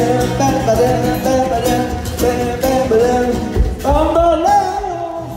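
Live Latin rumba music: strummed acoustic guitars in a fast rhythm with a singer's voice, a new sung phrase starting about four seconds in.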